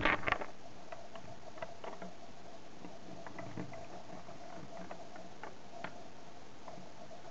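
LEGO plastic pieces handled on a baseplate: a quick cluster of knocks at the start, then scattered light clicks and taps, over a steady faint hum.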